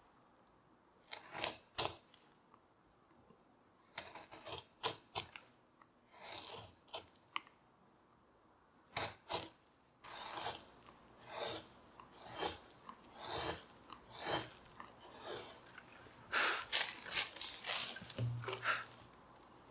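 Small hand carving gouge slicing shavings from a walnut stool seat: a series of short, crisp cutting strokes, sparse at first and coming quicker in the second half. A soft thump near the end.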